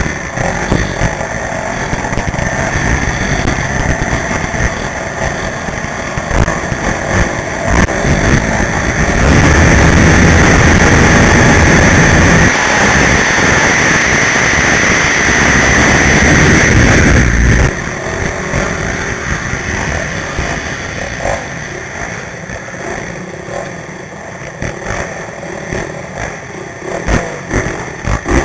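Quad racing engines running and revving. The sound gets markedly louder about a third of the way in and drops off suddenly a little past halfway.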